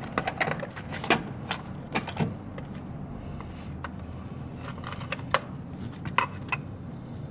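Light metallic clicks and clinks from hand tools and parts being handled at an engine, irregular and quicker in the first couple of seconds, then sparser, over a steady low hum.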